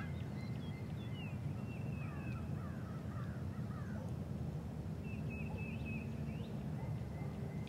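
Wild birds calling over a steady low rumble of outdoor background noise: a run of short falling notes about a second in, and thin high whistled notes twice, near the start and again past the middle.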